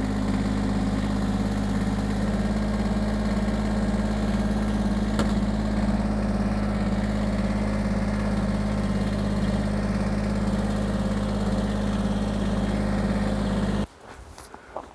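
An engine running steadily at one constant speed. It cuts off abruptly about a second before the end, leaving quieter scattered noises.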